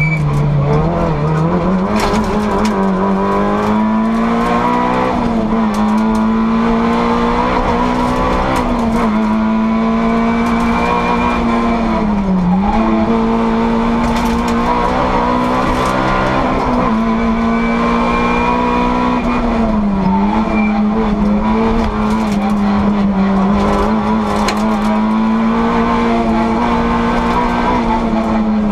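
Rally car engine heard from inside the stripped cabin, running hard at high revs. The pitch holds high, with brief dips and climbs back up several times, every three to four seconds or so.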